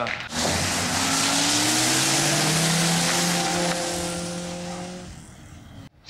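A car accelerating away hard, its engine revving with a slowly rising note under a loud high hiss of tyres, then fading into the distance.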